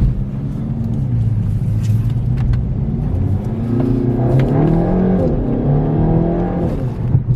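Stock exhaust of a 2021 Kia Forte GT's 1.6-litre turbocharged four-cylinder under acceleration. The revs climb, drop about five seconds in, then climb again. The note is very quiet, with a little bit of throatiness.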